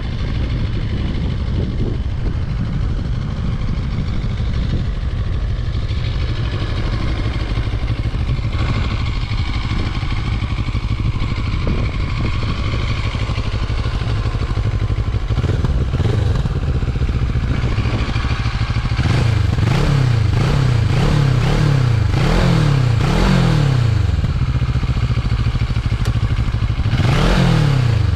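CFMoto 650MT's parallel-twin engine running steadily, then, from about two-thirds of the way in, revs rising and falling over and over, with one bigger rev near the end.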